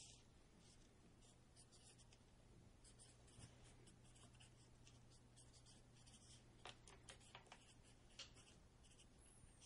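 Near silence on a telephone line during a hold without hold music: a faint steady low hum with scattered faint scratchy clicks, a few of them a little louder about seven to eight seconds in.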